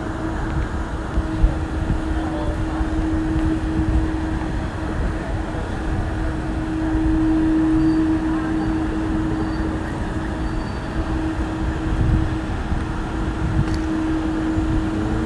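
City street traffic: a continuous low rumble of passing vehicles with a steady hum, swelling slightly about halfway through.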